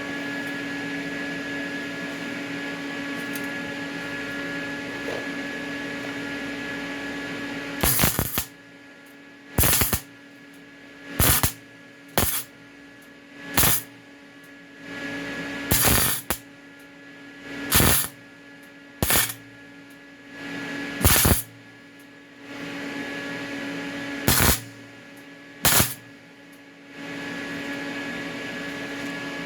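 Welder laying short welds on a lawn-tractor muffler: about ten brief bursts of arc crackle, each under a second, between about 8 and 26 seconds in, over a steady electrical hum.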